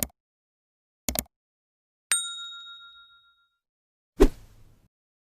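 Animated subscribe-button sound effects: two short mouse-style clicks, then a bright notification-bell ding that rings for about a second and a half, then a short pop.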